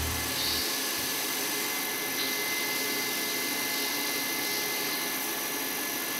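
Jig boring machine running steadily while its boring bar cuts a valve-seat pocket in a cast-iron cylinder head on the finishing pass. A low hum fades away in the first half second.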